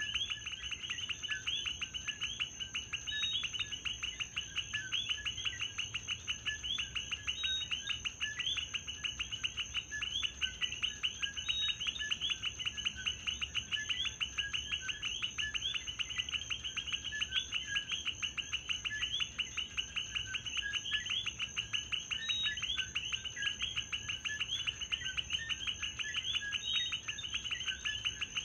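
Dense chorus of many coquí frogs calling over one another, short high notes repeating rapidly and overlapping without pause. A steady high-pitched tone runs underneath.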